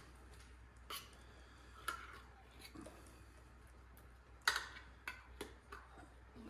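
Faint kitchen handling sounds: a spoon scraping and tapping condensed cream of chicken soup out of a metal can into the pot, heard as a few scattered clicks and knocks, the loudest about four and a half seconds in.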